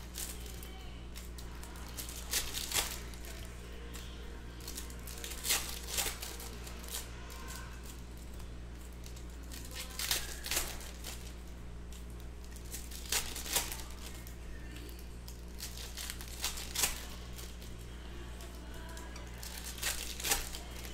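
Football trading cards and their foil pack wrappers being handled: brief crinkles and rustles every few seconds, often in pairs, over a steady low hum.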